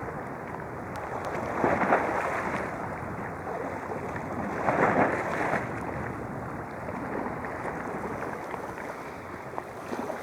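Sea waves washing in, a steady rush with two louder swells about two and five seconds in.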